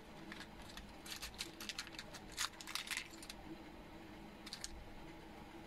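Light clicking and clinking of small glass cartridge fuses and parts being sorted by hand in a plastic parts box: a quick run of faint clicks for about three seconds, then a short pair of clicks near the end.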